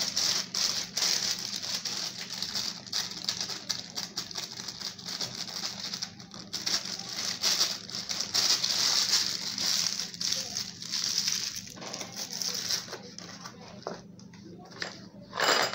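Plastic bag of icing sugar crinkling and rustling as it is handled and tipped into a metal sieve, with many small crackles, over a low steady hum. A brief louder sound comes near the end.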